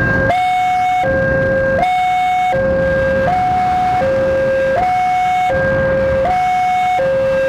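Railway level-crossing warning alarm sounding an electronic two-tone signal, alternating evenly between a lower and a higher tone about every three-quarters of a second. The crossing barrier is down, so the alarm is warning of an approaching train.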